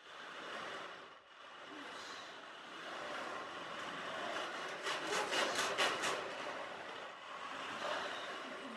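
Dried peas rolling inside a cardboard pizza box tilted from side to side, a homemade ocean drum: a continuous rushing rattle, with a quick run of sharper clatters about five seconds in.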